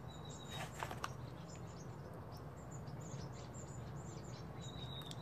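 Quiet room tone with a steady low hum, a few light clicks from hands handling a plastic control box, and faint high chirps, two short ones near the start and near the end.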